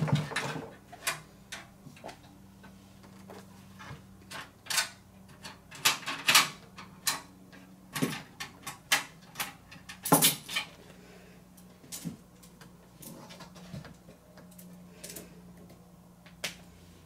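Scattered clicks, clinks and knocks of hardware being handled as a be quiet! Straight Power 11 power supply is fitted into a be quiet! Pure Base 500DX PC case, over a faint steady low hum.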